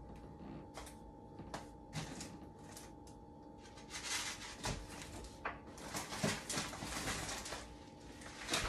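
Rummaging through packages on a kitchen pantry shelf: a few light knocks, then rustling and crinkling of food boxes and bags from about four seconds in, over a faint steady hum.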